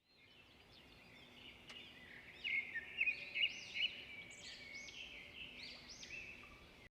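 Songbirds singing: a run of quick, arching whistled notes that fades in, is loudest two to four seconds in, and then continues more softly.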